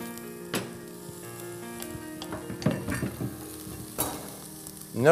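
Chopped onion and garlic sizzling as they fry in a stainless steel pot and are stirred with a wooden spoon, with about three sharp knocks of utensils against the pot.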